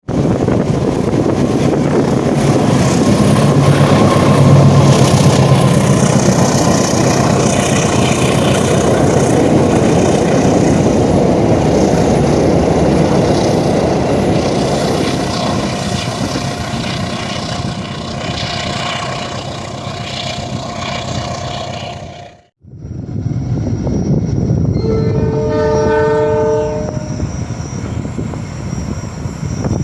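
A train passing close by, a loud steady rumble of diesel locomotive and wagons on the rails. After a sudden cut, another train sounds its horn in one blast of about two seconds, the semboyan 35 horn signal of Indonesian railways.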